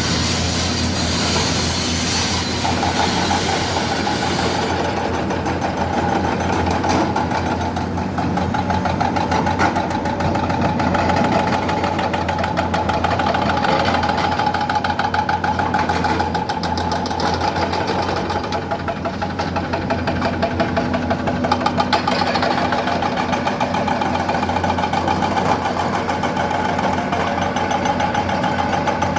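The diesel engine of a SANY 550 excavator running steadily. A high hiss sits over it for the first four seconds or so, then stops.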